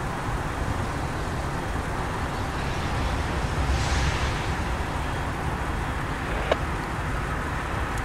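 Canadian Pacific diesel locomotives moving past, a steady low engine rumble, with a brief hiss about four seconds in and a single sharp click near the end.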